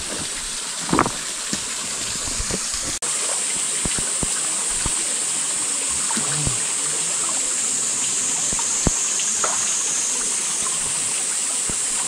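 Mountain valley stream running steadily over rocks, an even rush of water with a few faint ticks and small splashes. The sound drops out for an instant about three seconds in.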